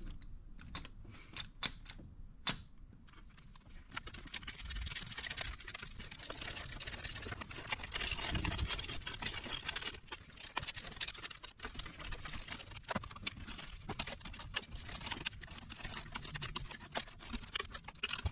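Hand ratchet clicking as the mounting bolts of a Helix Overdrive fuel-pump drive are run down and tightened. A few separate metal clicks come first, then from about four seconds in a dense run of rapid ratchet clicks.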